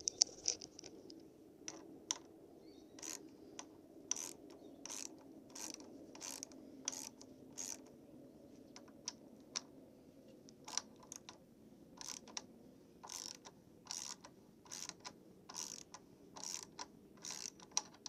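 Ratchet wrench with a 12 mm socket clicking in short repeated strokes, about one every half second or so, as it loosens a motorcycle front brake caliper's mounting bolt.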